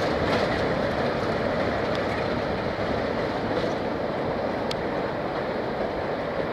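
Diesel-hauled charter train with a West Coast Railways Class 47 locomotive on the rear, running slowly away along the loop. It makes a steady rumble of engine and wheels that fades gradually, with a couple of faint clicks from the track.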